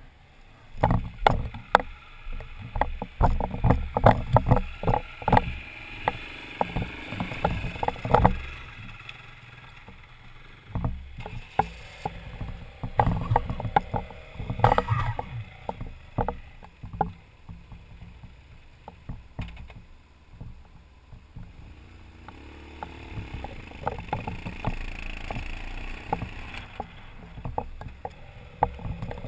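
BMW adventure motorcycle's engine running at low speed on a rough gravel track, with many sharp knocks and clatter from riding over the rocks, loudest in two spells in the first half.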